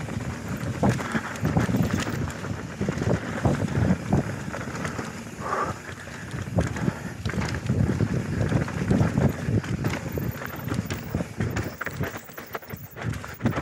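Mountain bike descending a dirt forest trail at speed: tyres rolling over dirt and roots with constant irregular knocking and rattling from the bike, and wind on the microphone.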